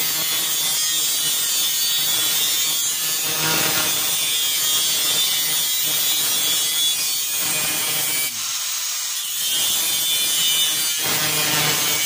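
Angle grinder with a cutting disc cutting through a metal strip, a loud steady grinding hiss that briefly lets up a little past eight seconds in.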